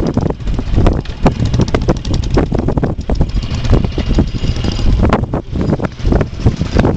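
Strong wind buffeting the camera microphone: a loud, uneven rumble broken by irregular gusty thumps.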